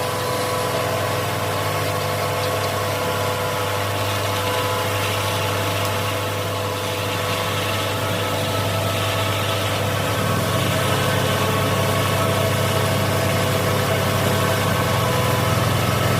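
Large diesel engine running steadily, growing a little louder and deeper about ten seconds in.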